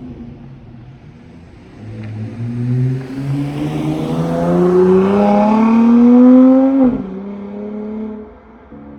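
Dodge Charger GT engine through Flowmaster 40-series dual exhausts, accelerating hard: the engine note climbs steadily for about five seconds. About seven seconds in, the revs drop sharply to a lower note, and the engine eases off soon after.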